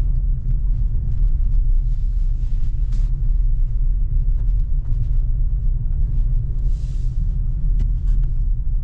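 Skoda Octavia A5 heard from inside the cabin while driving over rough, snowy ground: a steady low road rumble with a few light knocks, the plastic-sounding rattle the owner is chasing. He suspects a loose or unscrewed piece of plastic underbody protection or a wheel-arch liner.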